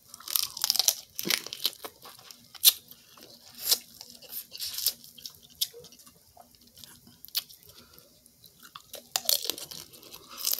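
Close-up eating sounds: boiled crawfish shells cracking and being peeled by hand, mixed with chewing. They come as an irregular string of sharp clicks and crackles, busiest at the start and near the end.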